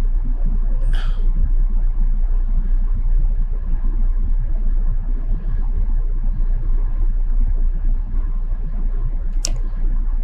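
Steady low rumble in the background, with a short hiss about a second in and a single sharp click near the end.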